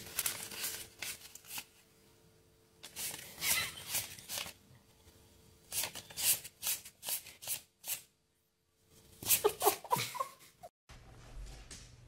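A thumb riffling the edge of a stack of paper banknotes: quick, papery fluttering flicks in about four short bursts with pauses between. Near the end the sound cuts to a faint low hum.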